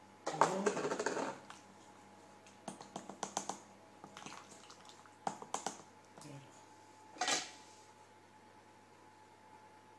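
Plastic spatula scraping and tapping inside a plastic shaker cup, working thick crystallised honey off into it. It comes in several short bursts of scrapes and quick clicks, the loudest in the first second and another near the end.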